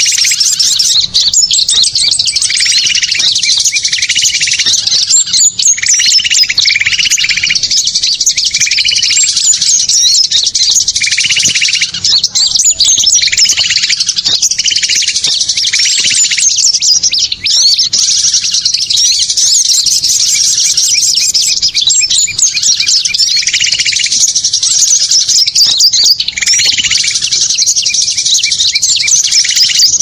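Bird-lure recording of a noisy flock of small songbirds: a dense, loud, unbroken chorus of high, rapid chirps and twitters, with a lower note repeated in short series again and again beneath it.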